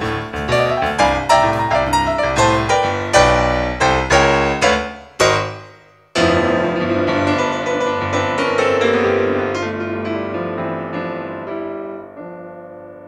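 Piano sound from a Nord Stage 2 stage keyboard: rhythmic chords up to a sharp stab about five seconds in, a short break, then a final held chord with a few notes moving on top that slowly fades away, closing the piece.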